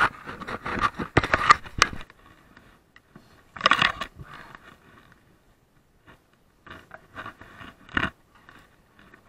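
Mountain bike pushed through fallen pine branches: twigs and boughs scrape and crackle against the wheel and frame in irregular bursts. The densest bursts come in the first two seconds, with another short burst near the middle and a few clicks later.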